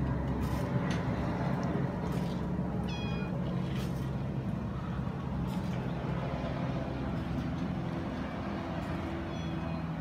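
Kitten meowing to its mother, two short high meows: one about three seconds in and a fainter one near the end. A steady low hum runs underneath.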